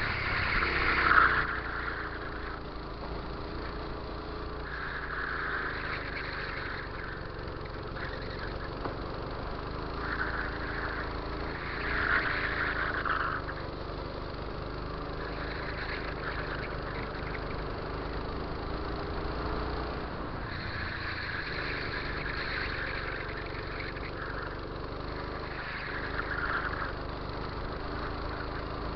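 Go-kart engine heard from on board the kart, its note rising and falling as it speeds up and eases off around the lap, with patches of rushing noise every few seconds and the loudest burst about a second in.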